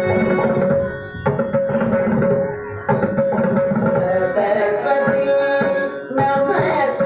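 Instrumental passage of Carnatic-style devotional dance music: drum strokes under a sustained melodic line, with no singing. The music dips briefly a few times, about a second in and near the end.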